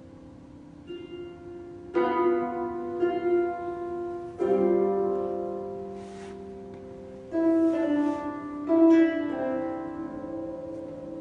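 Lever harp played solo in a slow Breton gwerz melody: plucked notes and chords, several struck a second or more apart, each left to ring and die away.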